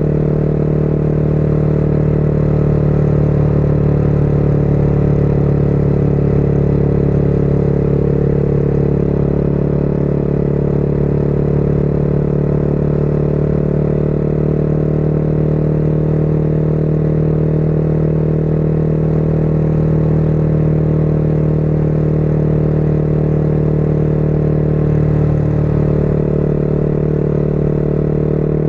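Motorcycle engine running at a steady cruising speed, its note holding a level pitch, with wind and road noise.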